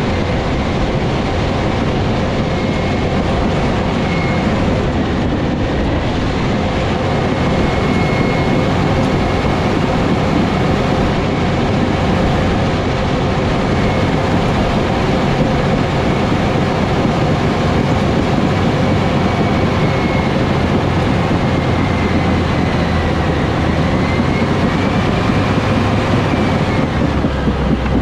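Next Gen Cat D7 bulldozer's diesel engine (Cat C9.3B) running steadily under work, with its steel tracks clattering. A thin high whine wavers a little in pitch throughout.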